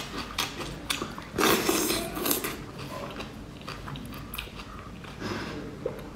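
Close-up eating sounds: wet sucking, lip smacks and chewing on a soft morsel of food, with many small clicks. The loudest stretch comes about a second and a half in.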